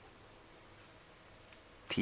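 Near silence: faint room tone, with a man's voice starting right at the end.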